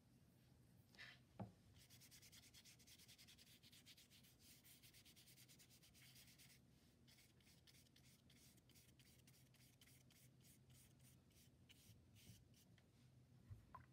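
A paintbrush scrubbing wet paint onto paper: faint, scratchy back-and-forth strokes that start about two seconds in, quick at first and slower toward the end. A soft knock comes just before the brushing starts.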